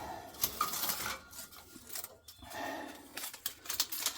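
Scattered light clicks and scraping of tools and metal hardware being handled during shock installation.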